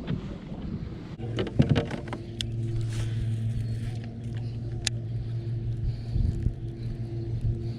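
A steady low motor hum sets in about a second in and keeps running. A few light knocks and clicks come just after it starts, with single clicks later.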